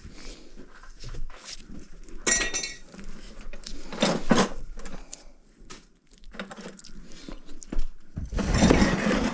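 Scattered metallic clinks and knocks, with a louder rattling burst near the end.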